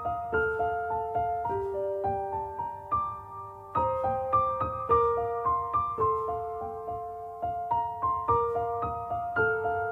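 Soft background piano music: a gentle melody of single notes struck one after another and dying away.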